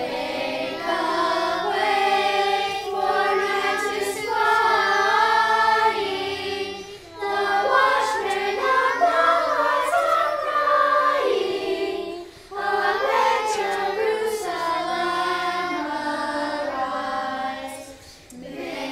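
Choir singing in long, sustained phrases, with short pauses between them.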